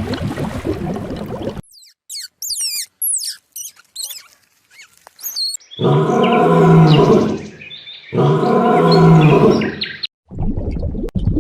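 Animal calls in quick succession: a run of short high chirping whistles that sweep up and down, then two long, loud, low calls about two seconds each.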